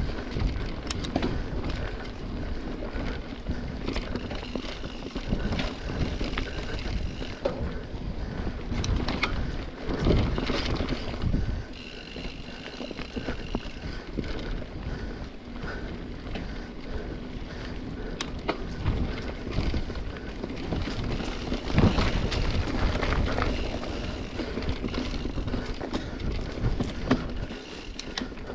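Mountain bike riding over a root-covered dirt trail: steady rolling noise with frequent knocks and rattles as the wheels hit roots.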